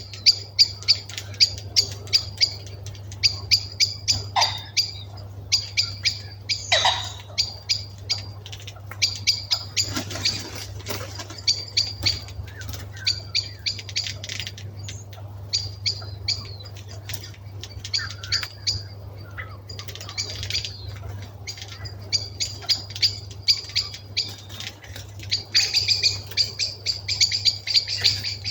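Birds settling into a winter roost, giving sharp, short chip calls several times a second in dense runs, over a steady low hum. The owner takes the roosting birds to be mainly thrushes.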